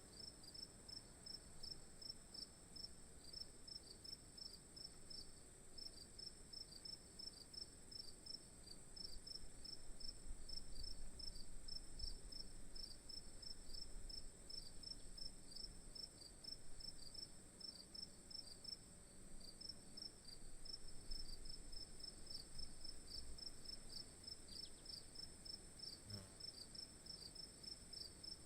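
Insects stridulating in forest undergrowth: a steady high-pitched buzz, and over it a regular chirping at about three to four pulses a second, with a faint low rumble underneath.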